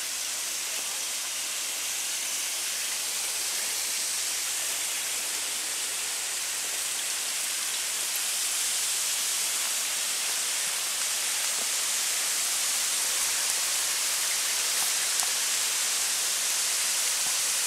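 Fast-flowing creek water rushing past a water mill, a steady hiss that grows slightly louder toward the end.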